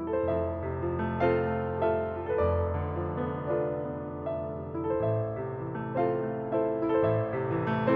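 Solo piano music: a slow melody of separate notes over held bass notes that change every couple of seconds.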